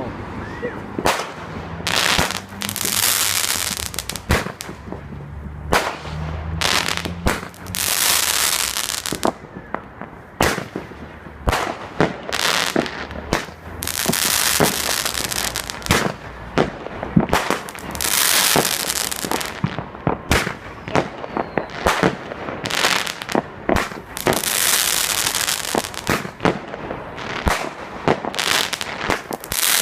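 Fireworks going off: a long barrage of sharp bangs, with crackling, hissing bursts lasting about a second every few seconds.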